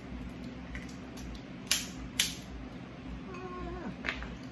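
Two sharp cracks about half a second apart, then a softer click near the end: crab shell being broken open by hand.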